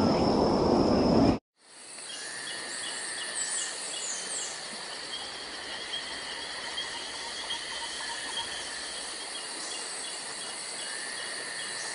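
A loud, dense noise cuts off abruptly about a second and a half in. It gives way to a steady nature ambience of insects trilling and chirping in an even, repeating pulse, with a few brief higher chirps.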